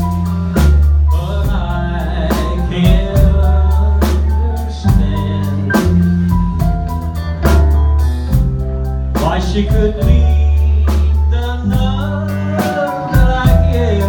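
Live rockabilly band playing a ballad: a man singing lead over electric bass, electric guitar and drum kit, with steady drum and cymbal strokes under held bass notes.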